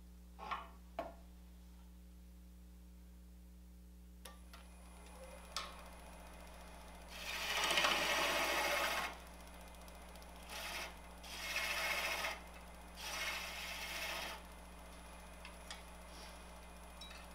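Two sharp clunks as the wood lathe's tool rest is moved in and locked. Then a turning tool cuts the spinning wood in four scraping passes, the first the longest and loudest, over a steady low hum.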